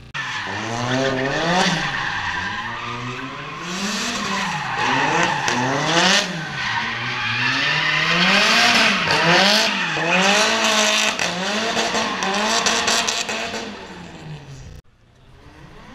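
Drift car's engine revving up and down about once a second as the throttle is worked through a slide, with tyres squealing and skidding over the tarmac. The sound starts abruptly and drops away sharply about a second before the end.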